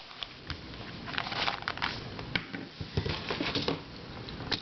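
Small plastic twisty puzzles and their packaging being handled: scattered light clicks, taps and rustling.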